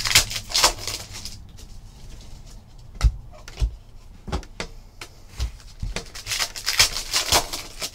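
Foil trading-card pack wrappers crinkling and tearing as packs are opened and cards handled, with a few short knocks in the middle and a longer stretch of wrapper rustling near the end.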